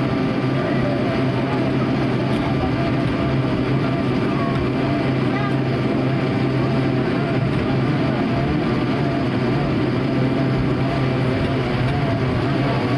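Cabin noise inside an Airbus A220-300 taxiing after landing: its Pratt & Whitney PW1500G geared turbofans running at taxi power, with a steady low hum over an even rush of noise.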